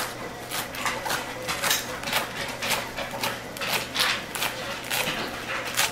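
Chef's knife chopping fresh cilantro on a wooden cutting board: a quick, uneven run of blade knocks on the wood, about two to three a second.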